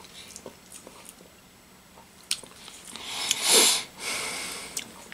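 Mouth sounds of a person tasting a spoonful of soft vegetable caviar: small lip smacks and clicks, then a loud breath about three and a half seconds in, followed by a softer one.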